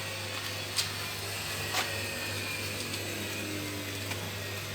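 Miele W1734 front-loading washing machine running empty: a steady machine hum with a couple of short sharp clicks.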